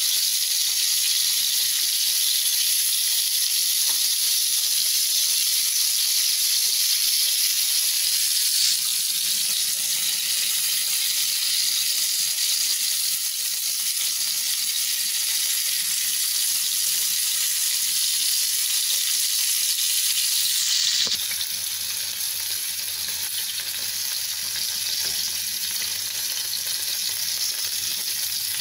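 Pork slices sizzling as they fry in sauce in a frying pan, a steady hiss that gets a little quieter about three-quarters of the way in.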